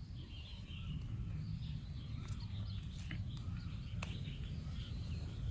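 Small birds chirping in short warbling phrases over a steady low rumble, with a few sharp clicks in between.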